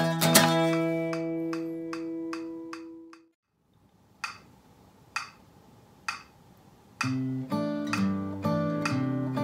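Steel-string cutaway acoustic guitar: a last chord rings and fades out about three seconds in. After a short silence come three faint clicks about a second apart, then a fingerpicked practice phrase begins about seven seconds in, with long-held bass notes under picked upper strings.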